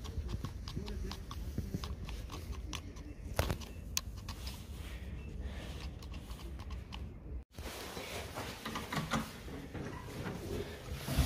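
Irregular plastic clicks from a button on a broken umbrella handle being pressed, over a low rumble of handling noise. The sound breaks off briefly about two-thirds in, then scattered clicks and rustling go on.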